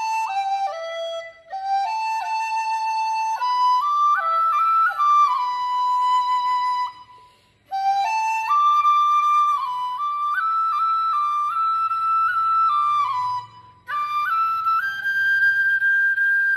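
KX1 dizi in the key of A, its membrane fitted, played solo: a slow melody of held notes that step and slide between pitches, in phrases broken by short pauses for breath, one about halfway through and another near the end.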